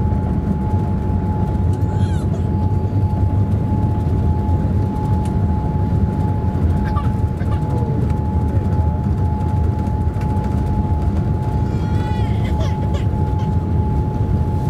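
Boeing 787 Dreamliner's jet engines heard inside the cabin while the airliner moves along the runway for takeoff: a steady low rumble with a steady high whine over it.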